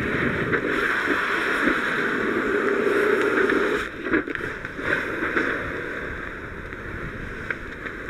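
Fire hose nozzle flowing water in a steady hiss, knocking down the fire; the flow breaks briefly about four seconds in with a few knocks, then continues quieter.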